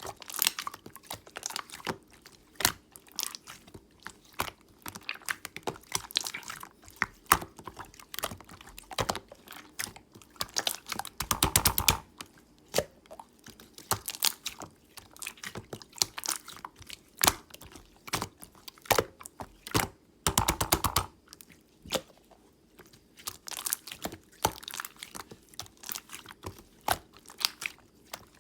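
Clear slime being squeezed, pressed and poked by hand, giving sharp, irregular clicks and pops. Twice, about eleven and twenty seconds in, it breaks into a quick run of rapid crackling pops.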